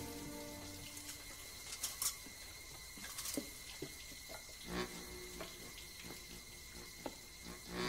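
Water dripping and trickling, with scattered sharp clicks and two short low creaks, one about five seconds in and one near the end.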